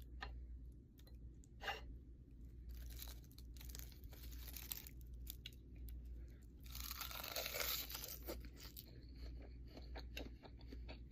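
Close-miked eating sounds: crunching and chewing with scattered small clicks, and two longer crackly stretches of a couple of seconds each.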